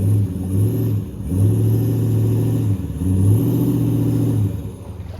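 Car engine revving in several surges while the car pulls on a screw-in ground anchor, straining to drag it out of the ground. The last two surges are longer, and the engine drops back about a second before the end.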